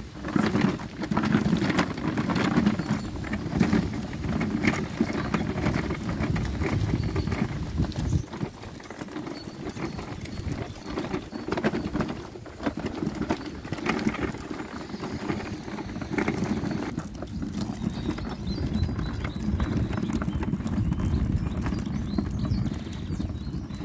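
Wind rumbling on a phone microphone, with footsteps on a path.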